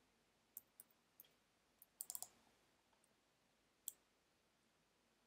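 Scattered clicks of a computer keyboard and mouse, with a quick run of four keystrokes about two seconds in, over near silence.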